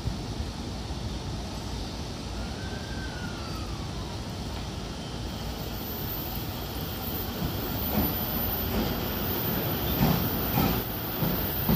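E231 series electric commuter train starting off from the platform. A steady rumble at first, then wheels knocking over rail joints from about eight seconds in as it gathers speed.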